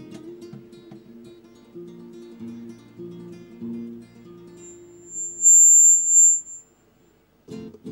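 Acoustic guitar strumming chords, dying away about four and a half seconds in. A loud, steady high-pitched tone follows for about a second, then a brief near silence.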